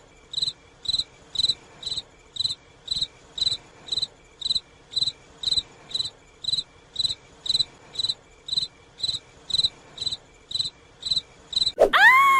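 Crickets chirping, about two chirps a second: the comedy sound effect for an awkward silence after a joke falls flat. Near the end a loud tone swoops up and back down.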